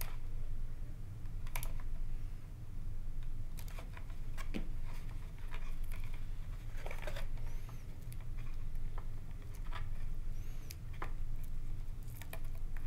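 Light clicks and rustles of a servo-wire Y harness and its small plastic connectors being handled and untangled, scattered irregularly, over a steady low hum.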